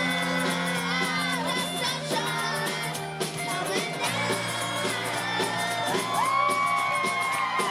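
Live band playing a pop song with lead vocals, the singer holding a long note near the end.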